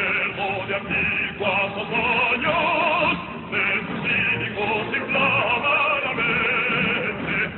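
A hymn sung in an operatic style with strong vibrato over musical accompaniment, in continuous sung phrases.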